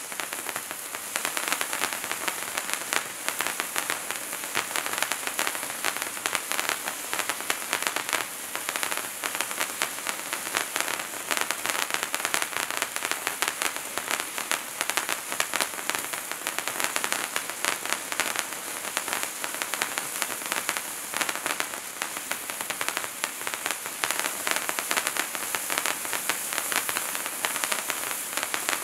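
Bright Star Wizards Wand hand-held fountain firework burning steadily: a continuous hiss of spraying sparks, thick with tiny crackles.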